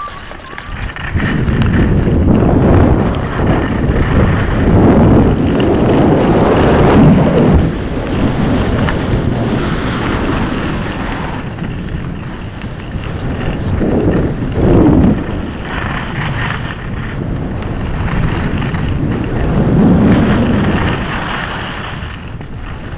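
Wind buffeting the microphone of a handheld camera carried by a skier going down a piste: a loud low rumble that swells and eases several times.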